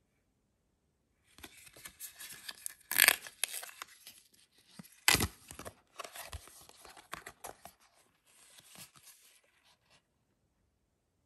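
A paper perfume sample sachet being torn open and the card unfolded: rustling and crinkling paper starting about a second in, with two sharp, louder tears about three and five seconds in.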